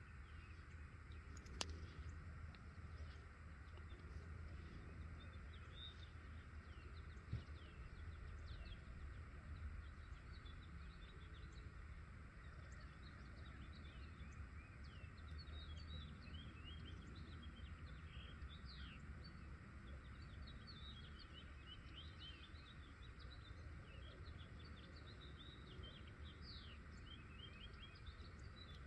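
Faint outdoor ambience of songbirds: many short high chirps and twitters, growing busier about halfway through, over a steady low background rumble. A sharp click sounds once about a second and a half in.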